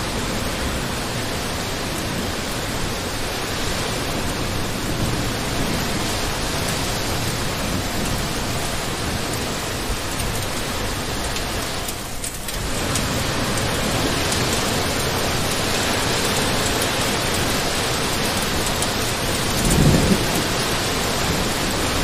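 Heavy rain falling steadily as a dense hiss, with a brief dip about halfway through. A short low rumble comes near the end.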